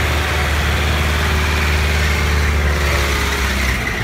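Daihatsu Feroza 4x4's 2.8 turbo engine running steadily at low revs, a close, low hum that fades a little near the end.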